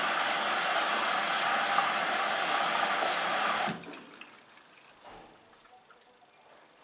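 Hoover washing machine filling for its prewash: water rushes loudly through the inlet valve, then cuts off suddenly a little over halfway through as the valve shuts, leaving only faint ticks.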